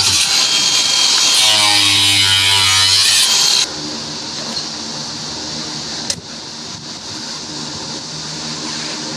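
A power tool running under load in two stretches, its motor pitch sagging and recovering as it cuts, then stopping about three and a half seconds in. A quieter steady machine hum carries on after it, with one sharp click about six seconds in.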